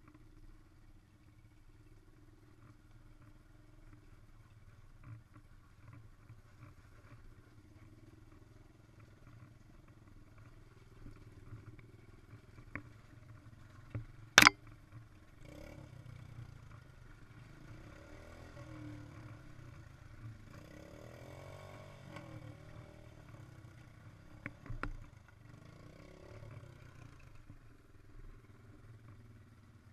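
ATV engine running at low trail speed over rough ground, with rattling and clicks from the bouncing machine and one sharp, loud knock about halfway through.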